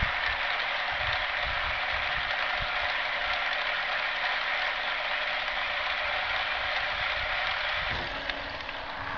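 Sterwins surface water pump running on its first start on an old abyssinian well, drawing water up through the well pipe: a steady whirring hiss with a low hum and irregular low knocks underneath. About eight seconds in, the sound drops a little and the hum changes pitch.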